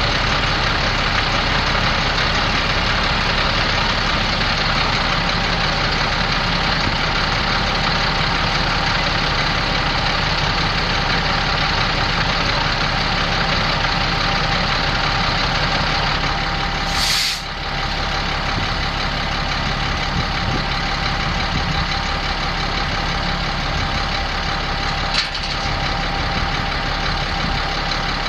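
International DT466 7.6-litre inline-six diesel of a 2003 International 7400 dump truck idling steadily. There is a brief break in the sound about two-thirds of the way through and a single sharp click near the end.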